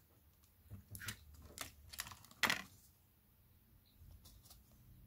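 A handful of light clicks and taps from fingers handling an opened Samsung Galaxy A50 and its replacement display, the loudest about two and a half seconds in, then a couple of faint ticks near the end.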